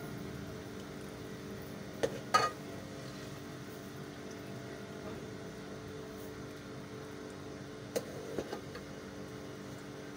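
Kitchenware clinking against a metal pan: a couple of short, sharp clinks about two seconds in and two fainter ones near the end, over a steady low hum.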